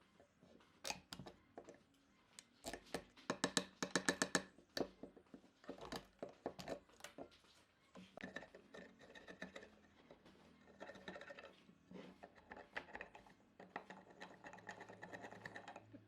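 Hand work on wood: irregular scraping and knocking strokes, with a quick run of them about three to four and a half seconds in.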